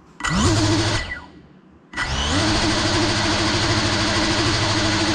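GEPRC Cinelog 35 cinewhoop's brushless motors and propellers spin up with a rising whine, wind down and stop about a second later, then spin up again about two seconds in and hold a steady idle hum. The quad is armed and idling on the ground.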